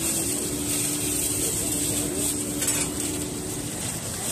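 Batter sizzling in a round griddle mold pan, with a steady hiss and a low steady hum that stops about three and a half seconds in. There is a brief clatter of utensils about two and a half seconds in.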